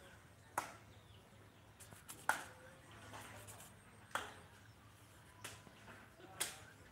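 Sharp crackles and snaps of fresh banana leaves being folded and pressed around rice, about six of them spaced unevenly, with the light scrape of hands scooping rice from a metal tray.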